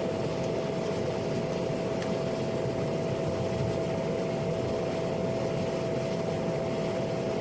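PAC 750XL's Pratt & Whitney PT6A turboprop engine running steadily: a constant whine over a dense rumble.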